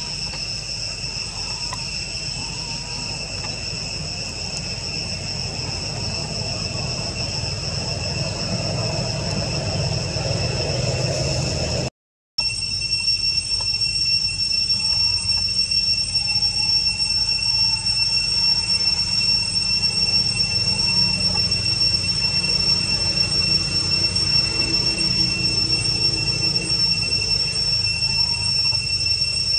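Insects droning in the forest: a continuous, steady high-pitched whine over a low background rumble. The sound cuts out for a moment about twelve seconds in.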